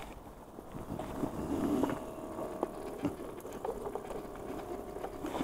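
Battery-powered aerator pump on a live-fish bucket humming steadily, with scattered knocks and clicks from the bucket being handled.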